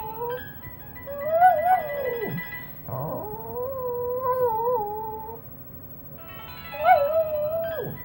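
A dog howling along to a phone ringtone: a series of long, wavering howls that bend up and down in pitch, with the ringtone's melody playing faintly underneath.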